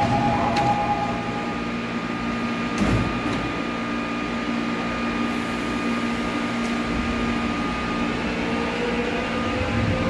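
Electric subway train at a station platform: a steady mechanical hum with several held tones, a single knock about three seconds in, and a whine rising slowly in pitch near the end.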